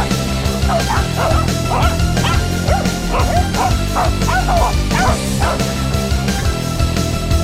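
Corgis yipping and barking in a quick run of short, high calls for several seconds, over background music with a steady beat.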